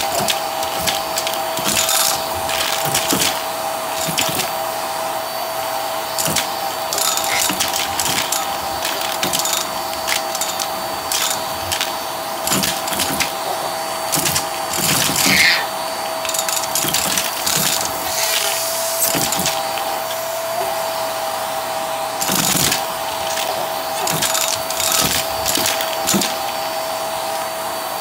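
Hart vacuum running with a steady motor whine as it sucks plastic caps, coins and confetti off carpet, with irregular sharp clatters and crunches as the items rattle up the tube, the loudest about halfway through.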